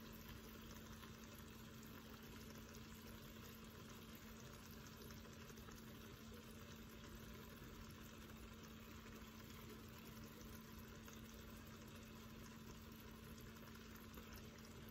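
Near silence: a steady faint hiss with a low, even hum underneath and no distinct events.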